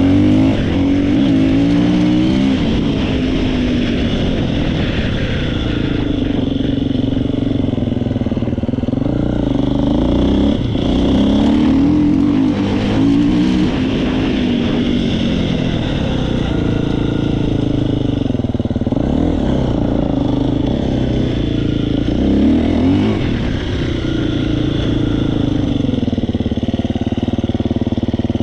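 Husqvarna FE 350 single-cylinder four-stroke engine running, blipped several times so its pitch rises and falls between spells of idle, with the rattling noise it has developed at only 3 hours of running.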